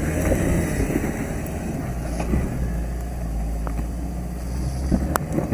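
A four-wheel drive's engine running steadily under load as it crawls up a rutted dirt-and-rock climb, tyres scrabbling and stones knocking. A sharp knock comes near the end.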